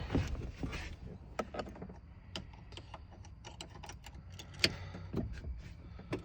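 Scattered light clicks and taps of handling, with one sharper click about four and a half seconds in.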